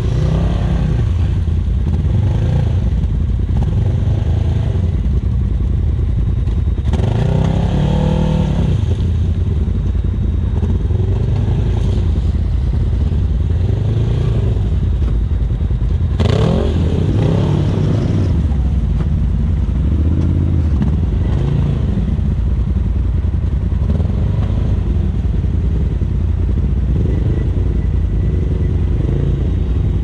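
Side-by-side UTV engines running steadily, with two revving surges, about 7 and 16 seconds in, as machines climb through the mud.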